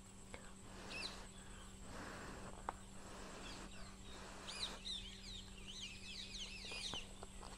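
Small birds chirping faintly in the background: a short call about a second in, then a quick run of twittering chirps in the second half, over soft outdoor ambience.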